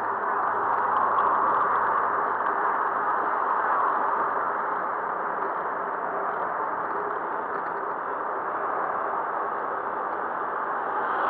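Steady rushing noise of a bicycle ride through city traffic, wind and road noise blended together, with no distinct events.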